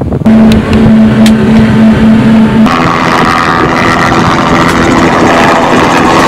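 Jet ski engine running with a steady, pulsing tone, then, a little under three seconds in, it gives way abruptly to a light helicopter flying low overhead, a denser, steady engine-and-rotor drone.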